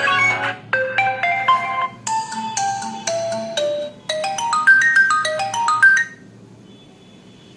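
Built-in ringtone on an Infinix smartphone playing a quick melody of short, bright notes stepping up and down in pitch, cutting off suddenly about six seconds in.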